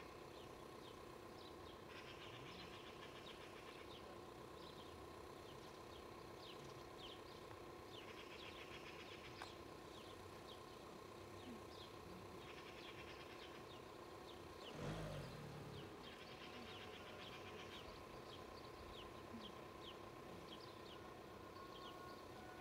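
Quiet outdoor ambience: faint birds chirping over a steady low hum, with one brief louder rumble about fifteen seconds in.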